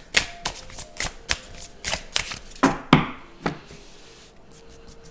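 A deck of oracle cards shuffled by hand, a quick run of card flicks and snaps. About three and a half seconds in it goes quieter as the deck is spread out across the tabletop.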